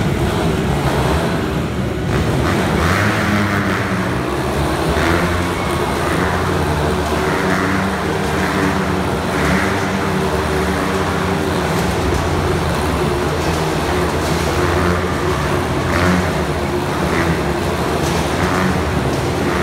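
Several motorcycle engines running together inside a steel-mesh globe of death, rising and falling about every second or two as the riders loop around the sphere.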